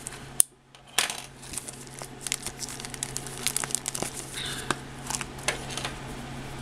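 A thin plastic bag of model-kit parts crinkling and crackling as it is handled and worked open, with many quick, irregular sharp clicks. A faint, steady low hum runs underneath.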